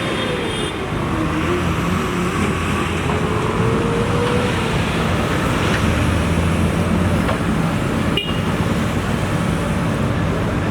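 JCB 3DX backhoe loader's diesel engine running steadily under work, with a whine that rises and falls over the first few seconds and a single sharp click about eight seconds in.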